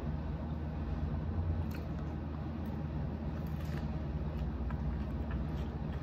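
A steady low hum, with a few faint, scattered crunches and mouth sounds of someone eating tortilla chips and birria tacos.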